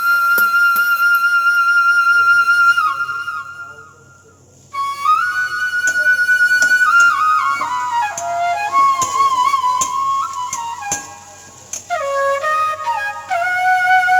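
Background music led by a flute playing a slow melody of long held notes. It fades away about four seconds in, comes back suddenly about a second later, and dips briefly again near the end before the melody resumes lower.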